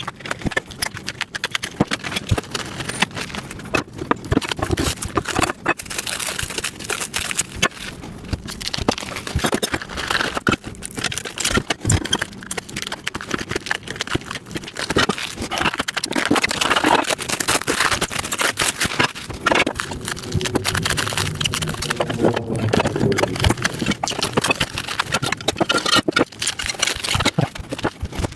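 Plastic packaging crinkling and tearing as it is stripped off the steel parts of a flat-pack welding table, a dense irregular crackle with scrapes from the parts being handled.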